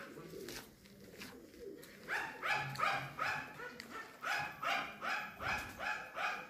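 Rajapalayam puppies yapping in a quick steady series of short, high-pitched yaps, about three a second, starting about two seconds in.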